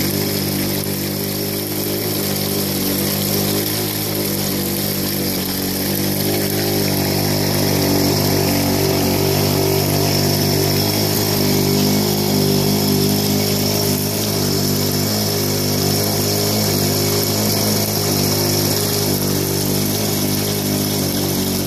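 A small engine running steadily at one speed, over water rushing down an aluminium sluice box across its riffles and washer mat.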